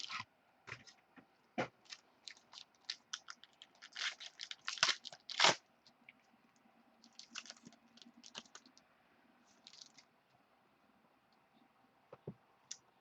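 Trading card box and foil pack being opened by hand: crinkling, tearing and scraping in irregular crackles, densest over the first six seconds and sparse after.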